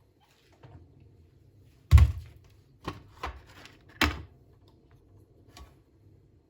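A few sharp knocks, objects handled and set down during housework: a loud one about two seconds in, two lighter ones a second later, another about four seconds in, and a faint tap near the end.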